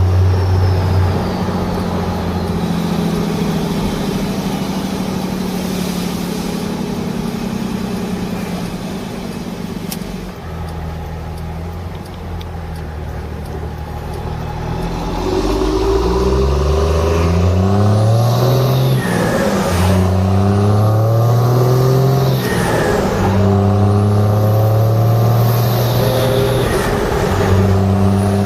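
Cummins inline-six turbodiesel in a Dodge Ram pickup running steadily, then accelerating through the gears of its manual gearbox: in the second half the engine note climbs in pitch and drops back at each shift, several times over.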